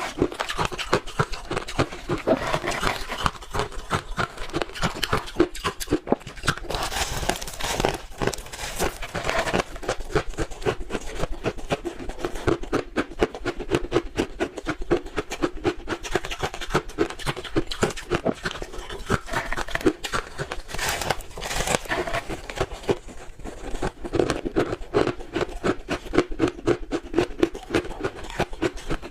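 Close-up chewing of blended crushed ice: dense, rapid crunching and crackling that runs without pause.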